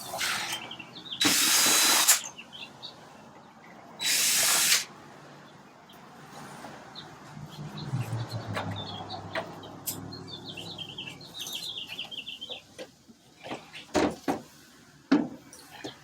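Cordless drill-driver run in two short bursts of about a second each, backing out the screws that hold the wheel clock in its box, followed by quieter handling knocks and clicks.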